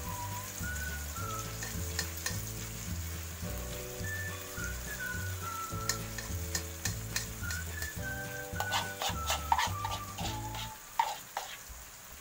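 Food sizzling in a hot wok while a metal spoon stirs and scrapes through it. A quick run of clinks and scrapes against the pan comes in the last few seconds.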